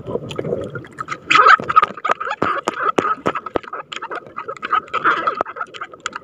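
A styrofoam fishing float and its line being handled close to the microphone: irregular handling noise with many sharp clicks and knocks, loudest about a second and a half in.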